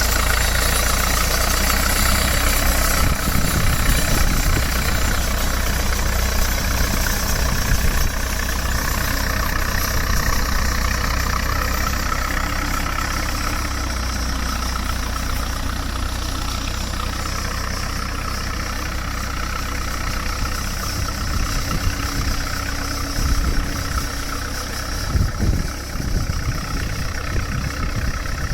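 Standard Fordson tractor's four-cylinder engine running steadily at idle, with a few heavier low thumps near the end.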